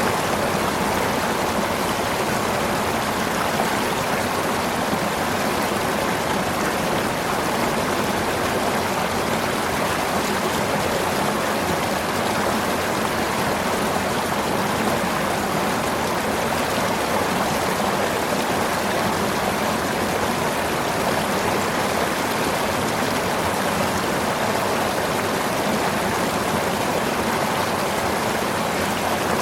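River water flowing, a steady, even rushing that does not change.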